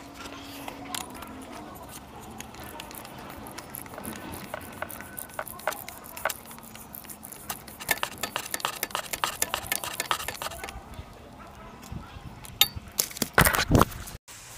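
Small metal parts and tools clinking and tapping as hands work around a motorcycle's exposed front sprocket, with a few loud knocks near the end.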